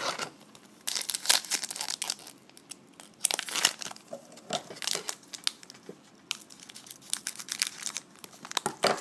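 Trading card pack wrapper crinkling and tearing as it is opened, in several bursts, with cards being handled. Near the end there is a bump against the camera.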